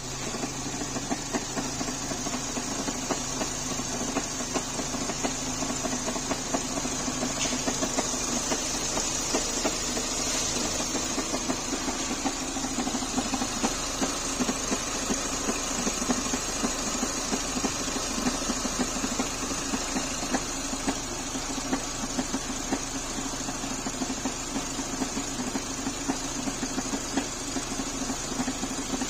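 Renault K4M 1.6-litre 16-valve four-cylinder petrol engine running steadily, with an extraneous knock repeating at a regular rate over the engine's steady sound.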